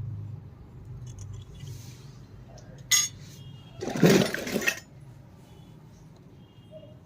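Miniature toy kitchenware being handled: a sharp clink about three seconds in, then a short, louder rattling burst about a second later.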